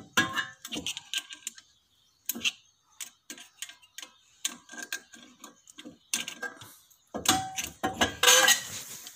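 Hand tools clicking, tapping and scraping on the metal parts of a car's disc brake caliper and pads as they are pried and pushed. There is a longer, denser stretch of scraping and rattling near the end.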